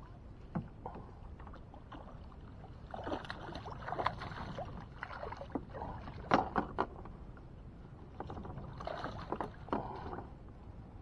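Water splashing and sloshing around a small boat in three bursts, with a few sharp knocks, the loudest about two thirds of the way through.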